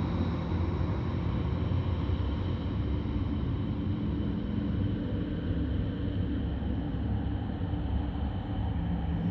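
Synthesized ambient drone: a steady low rumbling pad with a few faint, held high tones above it. A lower held note comes in near the end.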